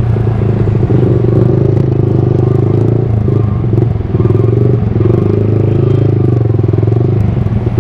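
Yamaha R15 V3's single-cylinder engine running through a Villain Pro1 full-system exhaust while riding, holding a fairly steady note with a brief easing around the middle.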